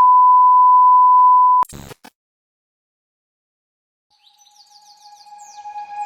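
A loud, steady 1 kHz electronic beep tone that cuts off abruptly about a second and a half in, followed by two seconds of dead silence. Near the end, music fades in with a run of high chirps over a steady tone.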